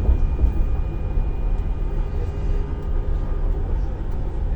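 Passenger train running: a steady low rumble with a faint, steady high-pitched whine over it.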